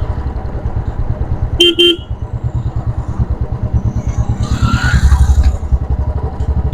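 Royal Enfield Classic 350's single-cylinder engine running at riding speed with its steady, evenly spaced exhaust pulses, heard from the rider's seat. A horn gives two quick beeps a couple of seconds in and one more short beep at the end, and a louder whooshing passes about five seconds in.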